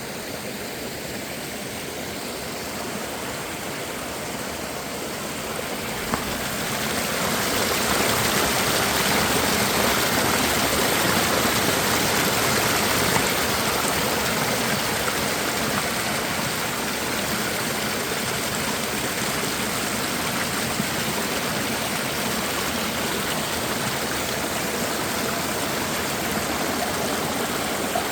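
Rushing water of a mountain stream, a steady hiss that grows louder about six to eight seconds in.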